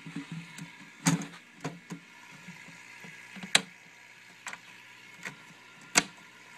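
Scattered sharp clicks and knocks from handling around a mesh-fronted enclosure, the loudest about a second in, at about three and a half seconds and near the end.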